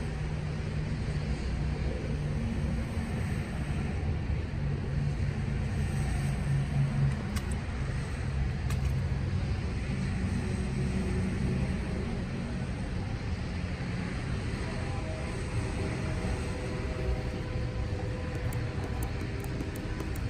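An engine running steadily at idle, a low even hum, with a couple of faint clicks about seven and nine seconds in.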